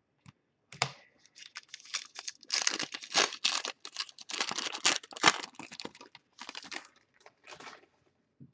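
Trading-card pack wrapper being torn open and crinkled: a run of sharp crackling and ripping, busiest in the middle, dying off with a few last rustles near the end.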